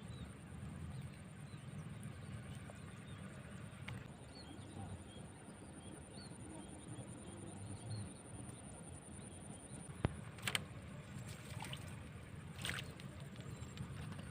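Outdoor ambience: a steady low rumble under a thin, steady high whine, with a few sharp clicks or taps in the last few seconds.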